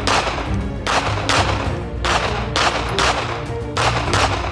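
Mossberg MC2C 9mm compact pistol firing a rapid string of about eight shots, roughly one every half second, with background music underneath.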